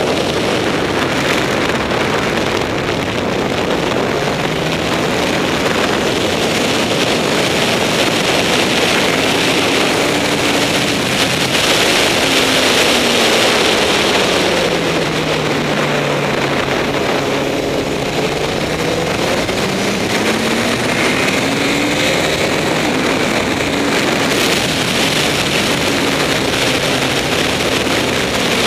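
Heavy wind rush over the microphone of a Honda CBR954RR ridden at track speed, with its inline-four engine faintly audible underneath. The engine note falls gradually through the middle and climbs again a few seconds later.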